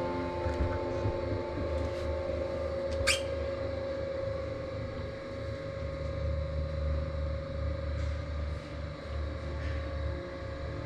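Slow, dark ambient drone music: a steady held tone over deep low chords that change every few seconds, with one brief sharp click about three seconds in.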